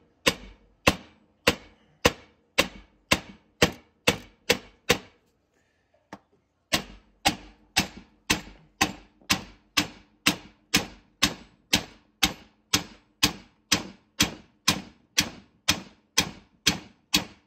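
Hammer blows peening the rivets of a new nose sprocket flat on a Stihl chainsaw guide bar, which rests on a steel block. The strikes come steadily at about two a second, each with a short metallic ring. The hammering stops for about a second and a half around five seconds in, then starts again at the same pace.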